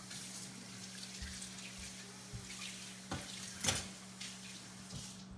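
Kitchen tap running into a sink, switched on suddenly and shut off about five seconds later, with a couple of sharp knocks about midway.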